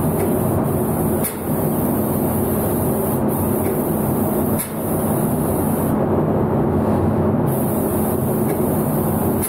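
Shop machinery running steadily, with a low hum and a high hiss that cuts out for about a second and a half some six seconds in.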